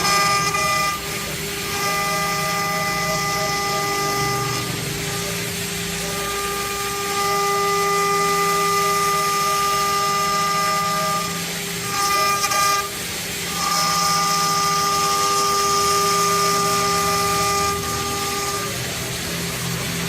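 CNC wood lathe running its program: its motors whine with steady tones that stop and start again every few seconds as the machine moves.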